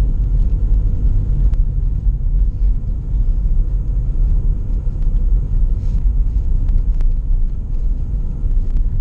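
Lada Priora cabin noise while driving: a steady low rumble of tyres and engine, with a few faint light clicks from the suspension that the owner is listening to for a knock.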